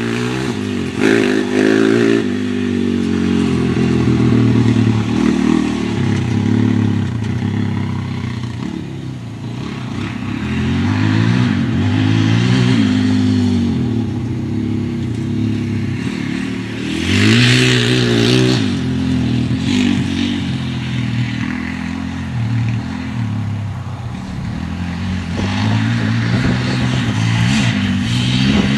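Polaris Outlaw 525 quad's KTM single-cylinder four-stroke engine being ridden hard, its pitch climbing and dropping over and over as the throttle is worked. A brief, louder rush of noise comes a little past halfway.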